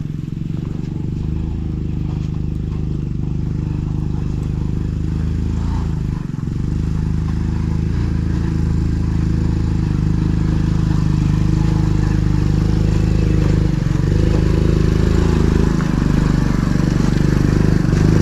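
Motorcycle engine running steadily under load as it climbs a steep track, dipping briefly about a third of the way in and a few times near the end.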